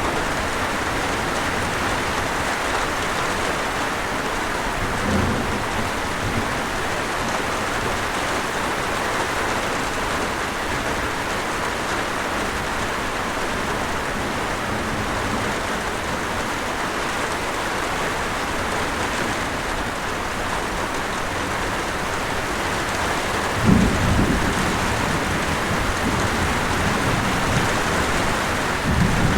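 Steady hiss of rain and falling water from a waterfall. Low rumbles of thunder break through about five seconds in, more loudly near the end, and once more just before the end.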